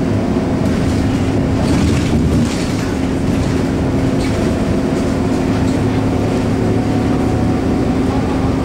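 Scania K230UB bus heard from inside the cabin while on the move: its DC9 diesel engine and ZF Ecomat automatic gearbox make a steady drone, with road noise, easing slightly about two and a half seconds in.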